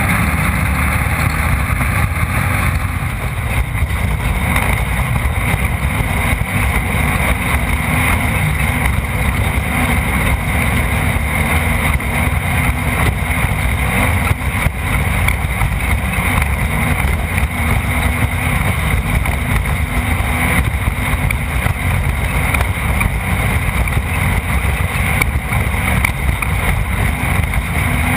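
Off-road race car running at speed, heard from a camera mounted on board: a steady, loud engine and chassis rumble that does not let up.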